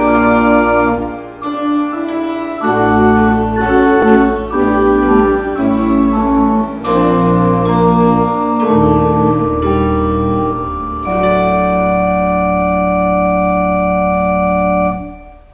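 Organ playing a hymn tune in sustained chords that change every second or so, then closing on one long held chord that stops abruptly near the end.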